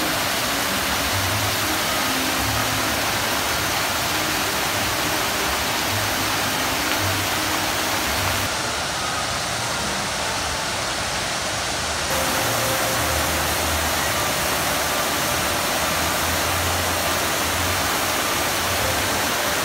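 Large outdoor fountain: water jets splashing and cascading over tiered basins into a pool, making a steady rushing splash. It turns a little duller for a few seconds near the middle.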